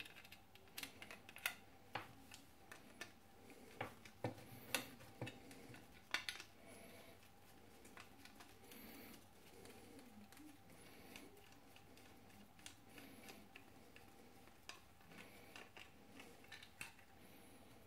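A small screwdriver turning tiny screws down into the standoffs through a Raspberry Pi add-on board: faint, irregular metallic clicks and ticks, busiest in the first several seconds and sparser afterwards.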